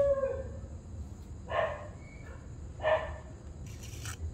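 Cat meowing: the falling tail of a long meow at the start, then two short meows about a second and a quarter apart.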